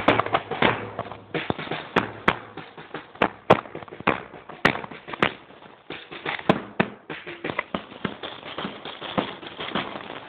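Marching drum beaten while walking: sharp hits, often in pairs a fraction of a second apart, repeating about every second and a bit, with lighter taps in between.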